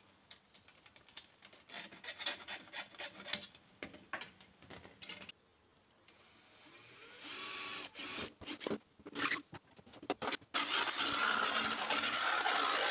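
Hacksaw strokes rasping through the plastic frame of a cat flap, then a cordless drill speeding up as it bores into a twin-wall plastic (corflute) sheet. About ten seconds in, a jigsaw starts cutting the sheet with a steady, much louder buzz.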